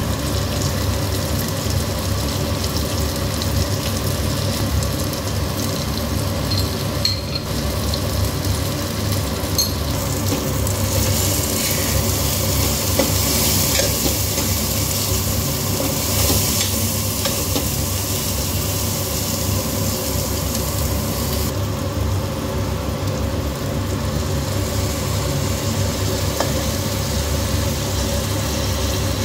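Onions and tomatoes sizzling as they fry in oil in a pressure-cooker pan, stirred with a steel spoon. The sizzle grows brighter and louder from about 11 to 21 seconds in. A steady low hum runs underneath.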